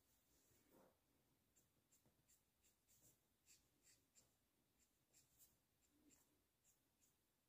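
Faint scratching of a Copic alcohol marker's nib stroking colour onto paper: short strokes, about two or three a second.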